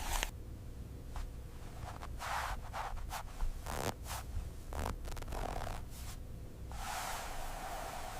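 Soft scraping and rustling in a series of short strokes, with a few light clicks, over a faint low rumble.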